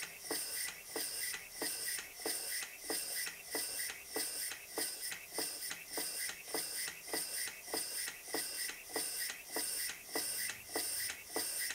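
Vintage toy steam engine running steadily on compressed air, its cylinder exhausting in an even rhythm of hissing puffs as the flywheel turns.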